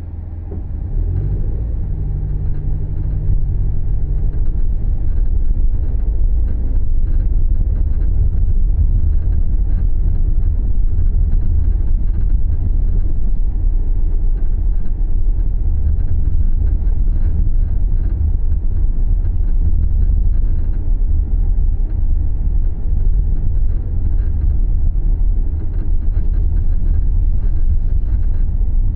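Low, steady driving rumble of a Subaru Levorg on the move, growing louder over the first few seconds and then holding. A brief low hum sounds near the start. The owner records it as an abnormal noise heard while driving.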